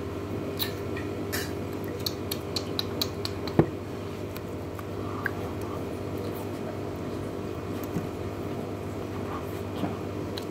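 Cutlery clinking against plates while eating: a quick run of light clicks over the first few seconds, one louder knock about three and a half seconds in, then only the odd faint click over a steady hum.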